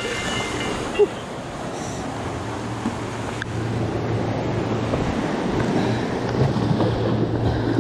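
Small waves washing against the boulders of a rocky breakwater, with wind on the microphone and a steady low hum underneath; a single knock about a second in.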